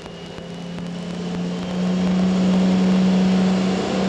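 International pro stock pulling tractor's turbocharged diesel engine revving up on the starting line. It builds in loudness and climbs slightly in pitch over the first two seconds, then holds a loud, steady drone.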